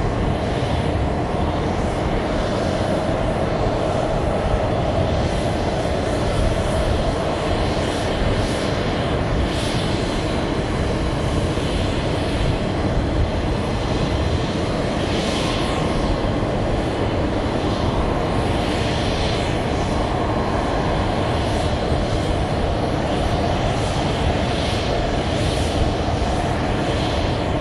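Airbus A321-231's IAE V2500 turbofan engines running steadily at low taxi power as the airliner rolls off the runway after landing.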